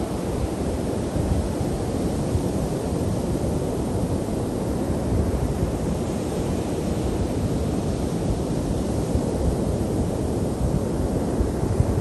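Ocean surf breaking and washing up the beach, a steady rushing wash, with wind buffeting the microphone as an uneven low rumble.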